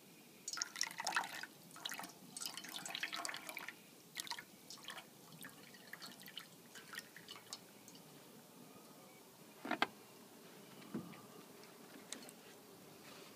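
Water poured from a plastic jug splashing into a stainless steel bowl, in uneven bursts for the first few seconds, then scattered drips and small splashes, with one sharp tap about ten seconds in.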